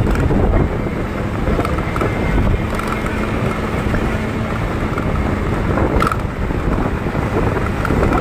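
Wind buffeting the microphone over the steady road and engine noise of a moving vehicle, with a faint engine hum in the middle stretch.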